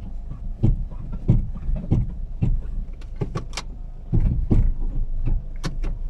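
The Chevrolet Spark's 1.4-litre engine running steadily, with irregular clicks and knocks throughout.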